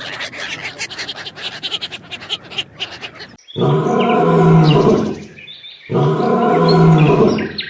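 A few seconds of dense crackling and clicking, then a large animal roaring twice, each roar about two seconds long with a steady, even pitch.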